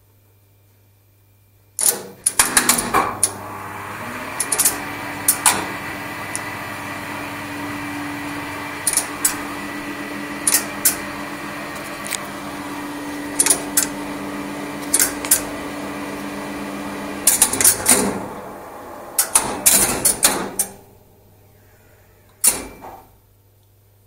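1970s Express Lifts relay controller and lift machinery during a run: a clatter of relays pulling in about two seconds in, then a steady motor hum with single relay clicks every second or two. Another burst of relay clatter comes as it stops, after which only a faint mains hum remains.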